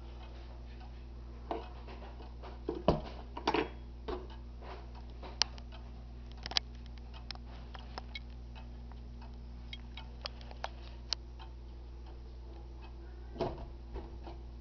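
Ansonia Regulator 'A' long-drop pendulum wall clock ticking. A few louder knocks come in around two to four seconds in and again near the end.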